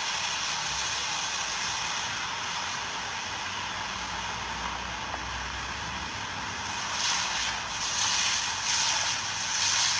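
Steady rush of wind and road noise from a moving vehicle, with several louder gusts of wind in the last few seconds.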